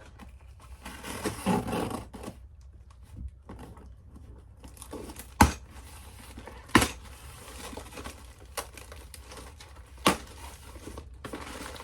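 A cardboard box being opened and its packaging torn and crinkled, with three sharp knocks about five, seven and ten seconds in as its contents are handled.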